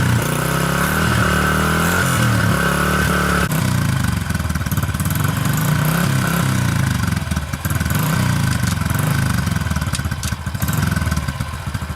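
Small dirt bike engine running as it is ridden around to warm up, its pitch rising and falling again and again with the throttle, getting choppier and a little quieter near the end. The owner suspects something is wrong with its transmission.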